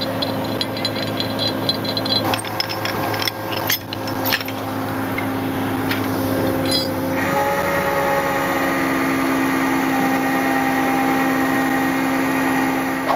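Vehicle engine running steadily with a constant whine, faint fast ticking in the first few seconds; about seven seconds in the hum shifts and becomes a little louder and higher.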